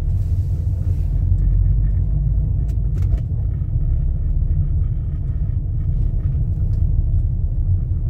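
Steady low rumble of a car driving slowly along a paved street, its engine and tyre noise. A couple of faint clicks come about three seconds in.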